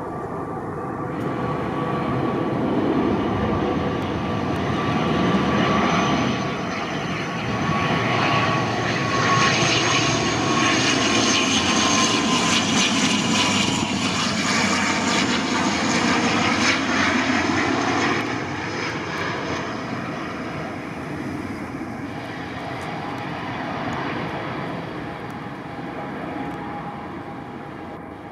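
ATR twin-turboprop airliner on landing approach flying over. The engine and propeller drone grows louder, peaks in the middle with a whine that drops in pitch as the aircraft passes, then fades as it comes down to the runway.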